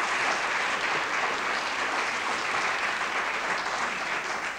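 Studio audience applauding steadily, tailing off slightly near the end.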